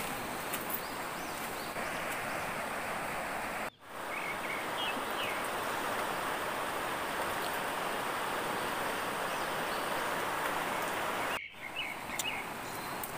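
Fast-flowing river rapids giving a steady rushing of water, with a few short bird chirps over it. The sound cuts out briefly twice.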